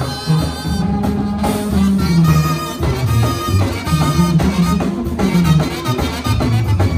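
Live Mexican brass band (banda) playing dance music: trumpets, trombone and clarinet over drums and a moving bass line, at a steady beat.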